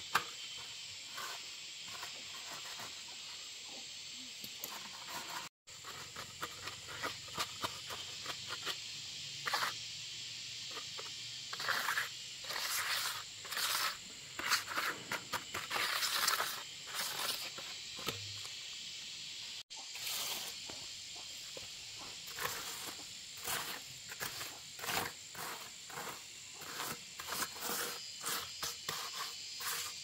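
A steady, high insect chorus of crickets, with many short, irregular scraping and knocking sounds from handwork over it.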